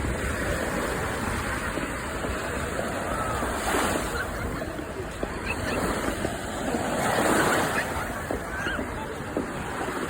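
Sea surf washing onto a beach: a steady rush of breaking waves that swells twice as larger waves come in, with a few faint short calls in the background.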